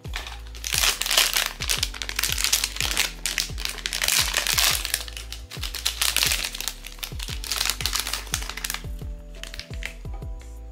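Crinkling of blind-box packaging being handled and opened, over background music with a regular low bass beat. The crinkling eases off about nine seconds in.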